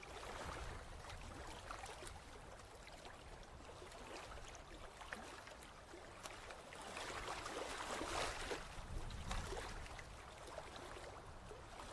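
Quiet water sloshing and small splashes with light clicks as flamingos wade and feed in shallow water, a little louder about seven to nine seconds in.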